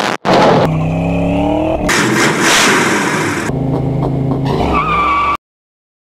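Car engine revving and accelerating across quick edited clips. Its pitch climbs about a second in, and then it settles to a steady note with a high wavering squeal. The sound cuts off abruptly to silence near the end.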